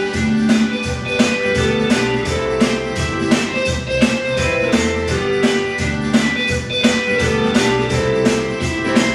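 Instrumental music with plucked guitar and a steady drum beat.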